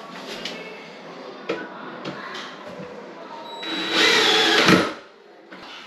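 Cordless drill running in one burst of about a second, driving a screw that joins two wooden vanity cabinet face frames. A few light knocks come before it.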